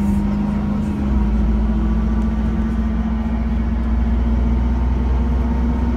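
Engine and road noise heard from inside a moving road vehicle: a steady low rumble with a constant engine hum, the rumble growing heavier about a second in.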